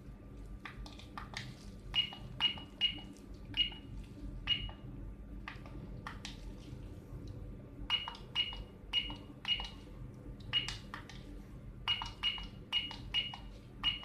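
Soca ST-660S security keypad beeping as its buttons are pressed: a short, high, single-pitch beep with a faint click on each key press, in quick runs of four or five presses with pauses between.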